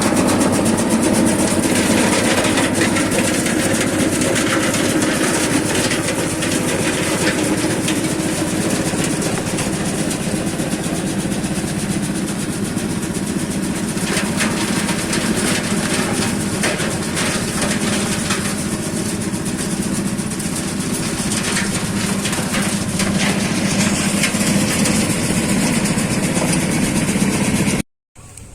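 Edamame threshing machine running steadily: a constant mechanical hum with a dense, fast rattle of small clicks over it. It cuts off abruptly near the end.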